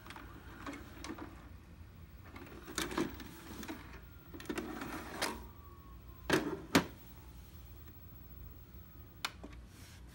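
Sanyo VWM-900 VCR's tape mechanism whirring and clattering in several short runs as it ejects a VHS cassette, with a faint falling whine. Then come two sharp plastic knocks, the loudest sounds, as the cassette is set down on top of the machine, and a single click near the end.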